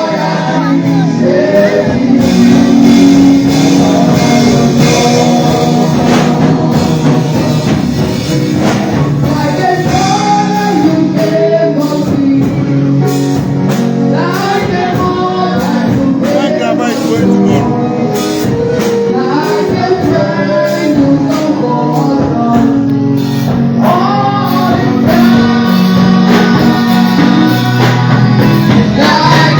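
Gospel song with singers over steady instrumental accompaniment.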